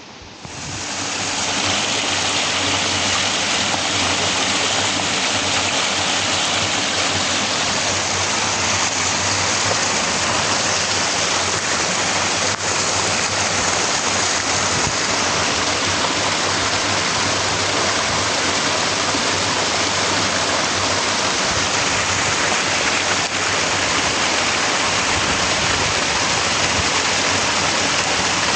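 Water rushing steadily, as from a mountain stream or waterfall: a loud, even hiss that fades in over about the first second and then holds level.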